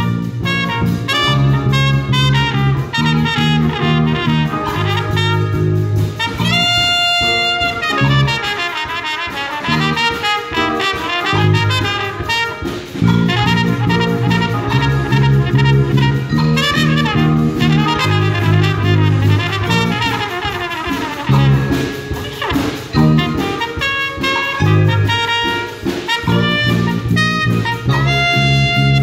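Jazz big band of saxophones, trumpets and trombones playing an up-tempo jazz tune over a moving bass line, with a trumpet out front. A long high note is held about seven seconds in.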